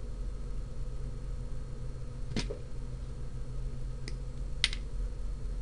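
Wire cutters snipping a diode's wire leads: three sharp clicks spread over a few seconds, the last the loudest.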